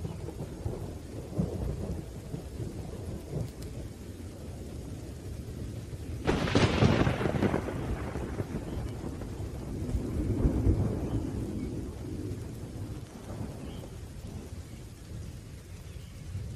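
Thunderstorm: steady rain under low rolling thunder. A sharp thunderclap breaks about six seconds in and rumbles away over a couple of seconds, and another roll of thunder swells around ten seconds in.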